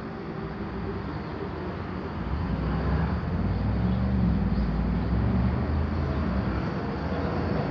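Road traffic: a passing motor vehicle's low rumble that swells to a peak around the middle and eases off toward the end.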